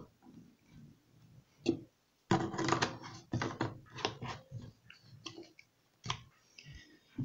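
Handling noises: a run of plastic clicks and knocks, with a denser clatter about two to three seconds in, as laundry softener bottles and their dosing cap are moved about and set down.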